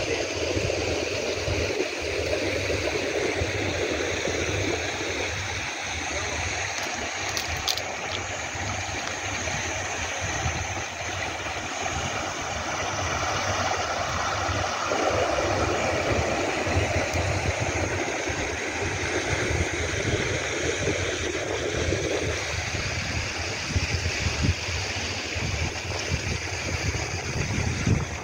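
Wind buffeting the microphone over the wash of calm sea water at the shore, steady throughout, with a couple of faint clicks about seven seconds in.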